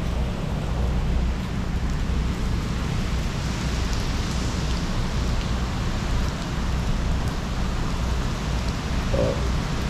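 Steady heavy rain from a tropical storm, falling on a screened pool enclosure, the pool and its deck, over a constant low rumble of wind.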